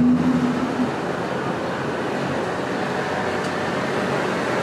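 Subway train at an elevated station, a steady rumbling noise, with a brief held tone in the first second.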